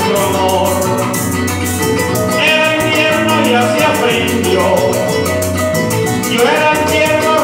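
Venezuelan llanera (joropo) music played live: a llanera harp carrying the melody with quick rising runs over cuatro and bass, while maracas shake a fast, steady rhythm.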